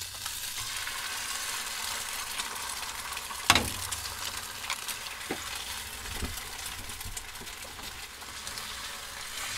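Eggs and chopped onions sizzling steadily in a hot frying pan. A sharp knock about three and a half seconds in, as a second egg is cracked open over the pan.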